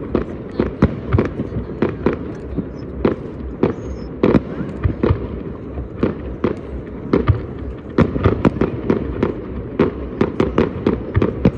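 Many fireworks going off at once, a dense, irregular run of sharp bangs and pops, several a second, over a continuous low rumble of further distant explosions.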